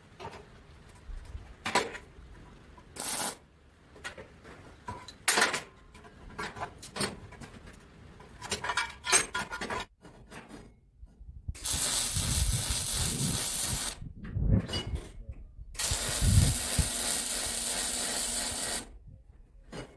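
Short knocks and clicks of metal parts being handled, then two welds with a steady hissing crackle: one of about two seconds, then after a short break one of about three seconds.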